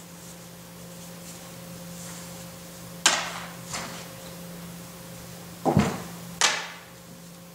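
Wire door of a plastic pet crate clanking shut with a sharp metallic sound about three seconds in, followed by a smaller latch click. Near the end there is a deep thump and then another sharp clank as the crate door is handled again, over a steady low hum.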